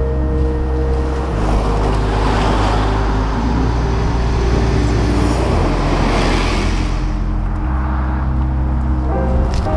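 Road traffic passing, a rush of engine and tyre noise that swells twice, about two and six seconds in. Underneath are sustained low music chords that change every few seconds.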